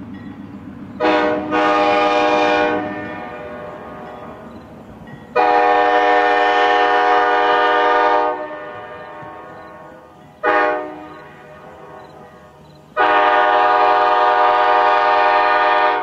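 Locomotive air horn sounding the grade-crossing signal, a chord of several notes: long, long, short, long. A low engine rumble carries between the blasts.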